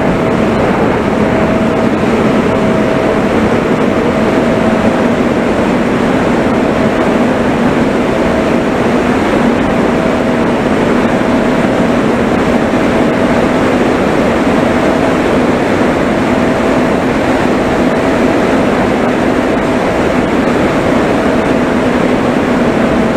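Steady rush of wind over an onboard camera on a small aircraft in flight, with the low, steady hum of its motor and propeller underneath and a higher tone that fades in and out.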